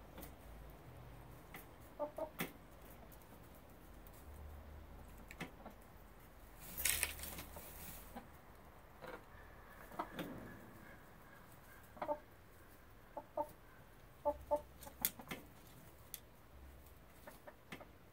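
Backyard hens clucking in short, scattered calls while they feed, with sharp pecking taps at a galvanized metal treadle feeder. A brief, louder noisy rustle comes about seven seconds in.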